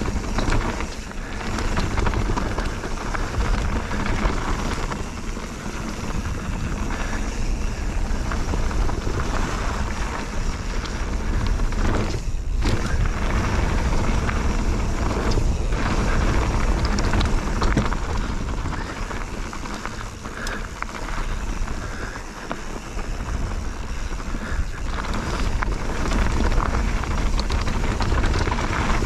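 Bird Aeris 145 full-suspension mountain bike descending a trail: tyres rolling over the dirt and stone surface and the bike rattling, under heavy wind noise on the action camera's microphone. The noise drops away briefly twice near the middle.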